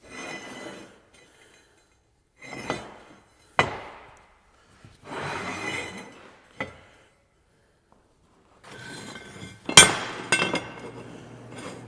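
Steel pieces being handled on a metal surface: several scraping slides and a few sharp clanks that ring, the loudest about ten seconds in.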